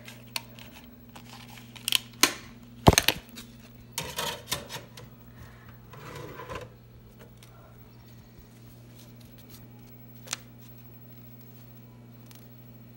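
Plastic clicks and clatter from a DVD being taken out of its case and set in a DVD player's tray: a burst of sharp snaps a few seconds in, softer handling around the middle, and one lone click about ten seconds in. A steady low electrical hum runs underneath.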